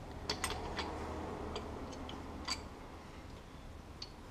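A handful of light, irregular metallic clicks and taps from valvetrain parts being handled by hand on an opened-up 5.7 Hemi cylinder head, the sharpest about halfway through.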